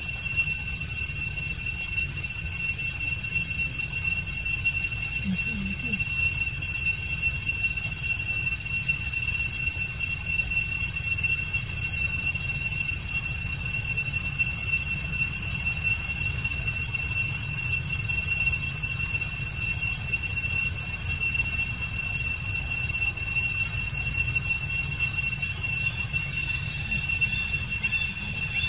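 Steady, high-pitched insect drone in several held pitches, over a constant low rumble.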